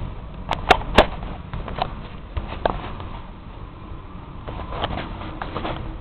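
Low steady rumble of a Mitsubishi Mr. Slim mini-split outdoor unit running, with a scatter of sharp clicks and knocks. The loudest clicks come about a second in.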